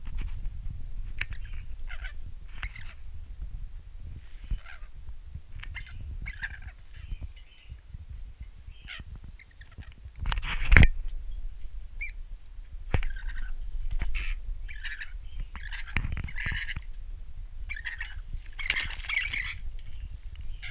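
Rainbow lorikeet bathing in a steel water bowl: irregular bursts of splashing and wing-flapping mixed with short bird calls. The loudest burst comes about ten and a half seconds in.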